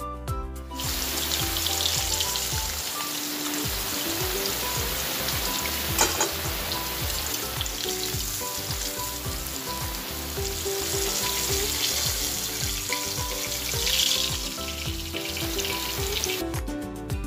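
Pieces of turmeric-coated grass carp frying in hot mustard oil in a kadai: a steady sizzle that swells about fourteen seconds in, with one sharp tap about six seconds in. Music takes over again just before the end.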